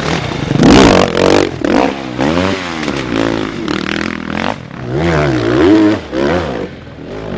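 Enduro dirt bike engine revved hard in repeated blips, its pitch rising and falling several times, with a loud burst of noise about a second in.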